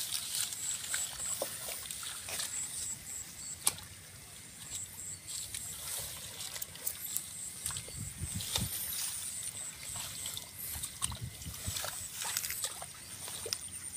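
Hands groping for fish in a shallow muddy puddle, sloshing and splashing the water at irregular moments, with one sharp click a little under four seconds in. A faint high-pitched chirping comes in short repeated runs behind it.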